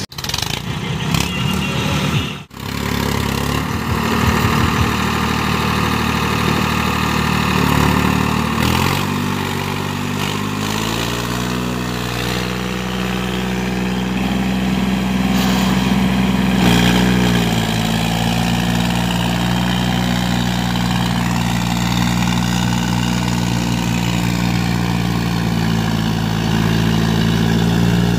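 Farmtrac 60 tractor's diesel engine pulling a rotavator through waterlogged mud. The engine speed rises about ten seconds in and then holds a steady working note.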